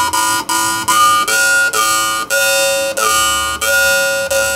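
A Shaun Jones jaw harp being plucked about twice a second. Its steady twanging drone carries a bright overtone that jumps from pitch to pitch as the player's mouth changes shape, picking out a little melody.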